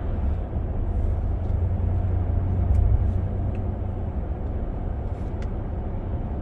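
Steady low rumble of road and engine noise inside the cabin of a 2025 Ram 1500 Limited pickup being driven, swelling slightly about three seconds in.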